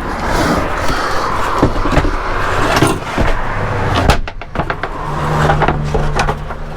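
Wooden panels being handled and slid into a van: scraping for the first few seconds, with a series of knocks and bumps throughout.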